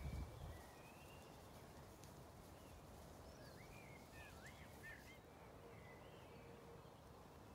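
Faint evening birdsong: scattered high chirps, then a short run of quick, warbling whistled notes about halfway through. A brief low rumble fades out at the very start.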